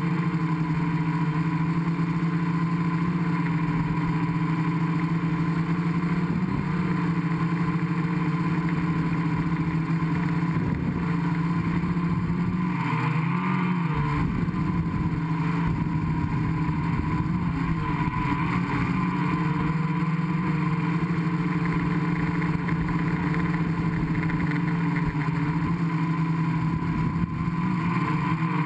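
Gaui 500X quadcopter's electric motors and propellers whirring steadily, heard from the camera on its own frame. The pitch wavers briefly about halfway through.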